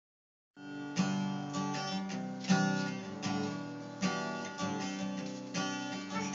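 Guitar being strummed, a strong chord about every second and a half with lighter strums between.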